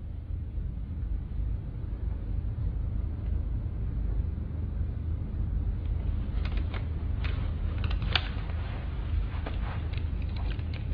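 Steady low room rumble, like ventilation or background hum, with faint scattered clicks and rustles from about six seconds in, as of small movements at a table.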